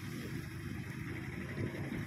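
A two-wheeler's small engine running steadily while riding along an unpaved, muddy road, with wind rumbling on the microphone.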